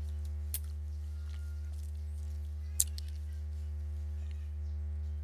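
Steady low electrical hum from the recording setup, with two sharp clicks of computer input: a small one about half a second in and a louder one near three seconds in.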